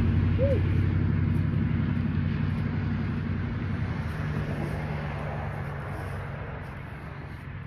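A motor vehicle passing on the road, its engine hum fading steadily as it moves away.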